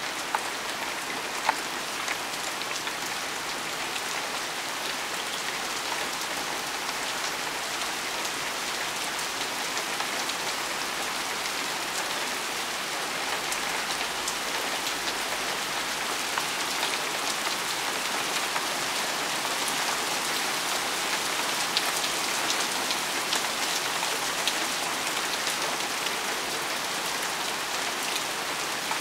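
Heavy rain falling on pavement awash with water: a steady hiss with scattered sharp drop ticks, growing a little louder about halfway through.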